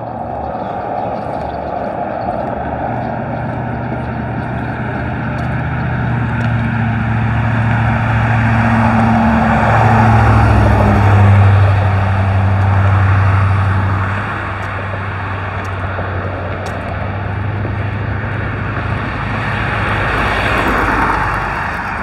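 Road traffic on a highway bridge. A car passes close by about halfway through: its tyre noise swells and then fades, and its low engine hum drops in pitch as it goes by. Another vehicle passes near the end.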